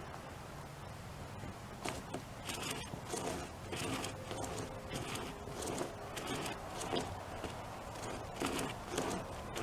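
Rope chainsaw's chain cutting into a tree branch as it is pulled back and forth from either side, in short scraping strokes about two a second, starting about two seconds in.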